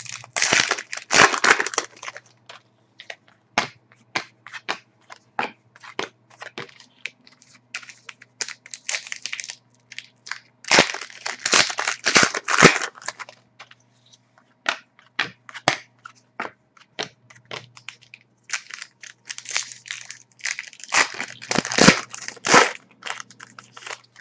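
Foil trading-card packs of 2011-12 Panini Contenders being torn open and the cards inside flicked through. The foil crinkles and the cards snap sharply, in three dense bursts: about a second in, around eleven seconds, and around twenty-one seconds.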